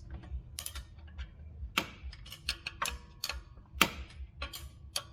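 Ratchet wrench clicking in irregular strokes, a few clicks a second, while loosening a 12 mm bolt on a power steering pump mounting.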